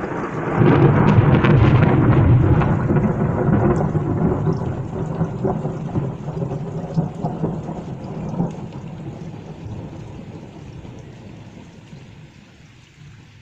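A long roll of thunder that swells about a second in, then slowly fades away over some ten seconds, with rain falling.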